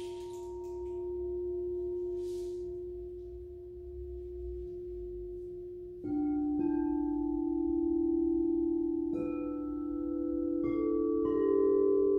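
Crystal singing bowls struck one after another, each ringing on in a long steady tone. One bowl rings alone for about six seconds, then bowls of other pitches are struck about six, nine and eleven seconds in, their tones overlapping.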